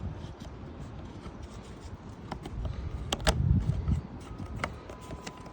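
Plastic air filter housing of a Briggs & Stratton lawnmower engine being handled as the filter is fitted and the cover clipped on: a few scattered clicks and knocks, the loudest pair about three seconds in.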